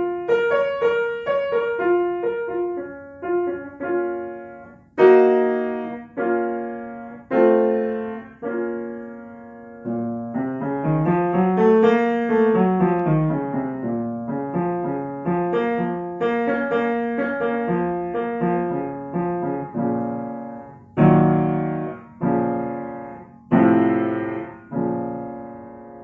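Upright piano playing scale exercises: quick runs of notes, a scale in octaves climbing and then falling back, and separate chords struck one at a time, the last chord left to ring out near the end.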